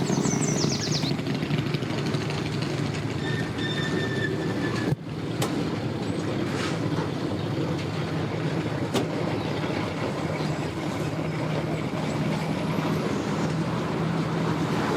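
Outboard boat motors running steadily at low speed, a continuous low hum under outdoor noise, briefly cutting out about five seconds in.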